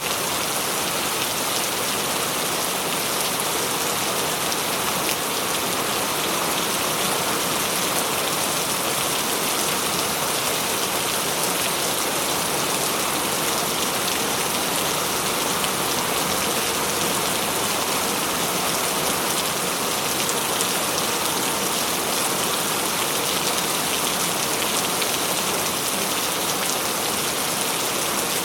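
Heavy rain falling steadily, a dense even hiss of drops on a surface with many fine individual drop ticks, unchanging in strength throughout.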